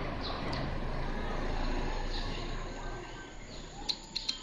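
Outdoor ambient noise: a steady rushing haze with a low hum, with small birds chirping now and then and a quick run of short, high chirps near the end.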